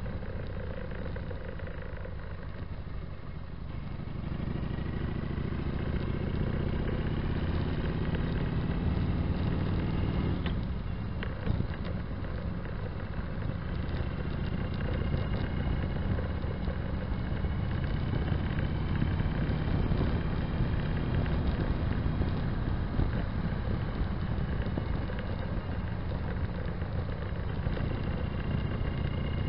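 Motorcycle exhaust fitted with Vance & Hines Longshots pipes and Quiet Baffles, heard while riding: the engine note climbs as it accelerates from about four seconds in, drops briefly at a shift after about ten seconds, then runs steadily at cruising speed.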